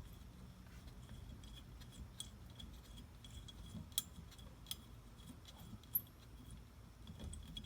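A few sharp, faint metallic clicks and ticks from a small Allen key and screws being worked on a steering wheel hub, over a low steady hum.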